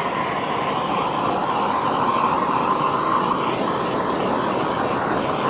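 Handheld gas torch flame hissing steadily as it is played over freshly poured epoxy to pop the air bubbles at its surface.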